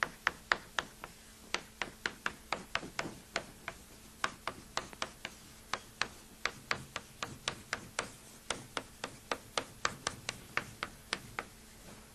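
Chalk writing on a blackboard: a quick run of sharp taps and short scrapes, about three to four a second, one for each stroke of handwritten Japanese characters, stopping shortly before the end.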